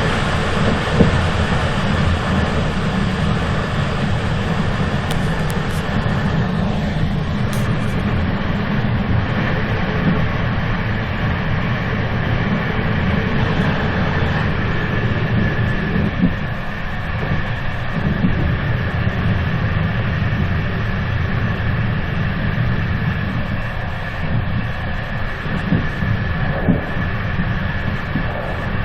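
A moving train running steadily, a continuous deep rumble with a few faint knocks.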